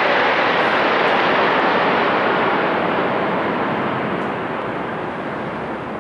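Military aircraft flying low overhead: a loud, even engine noise that fades away from a few seconds in as the aircraft pass and recede.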